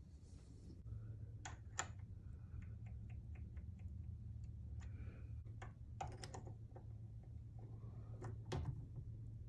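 Small metal shock damper parts clicking and tapping as they are handled and fitted onto a shaft held in a bench vise. A few sharper clicks come in ones and twos, with a quick run of light ticks early on, over a steady low hum.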